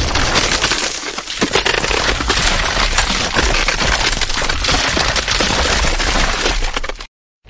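Ice cracking and crunching in a dense, continuous run of sharp cracks and snaps, which cuts off suddenly near the end.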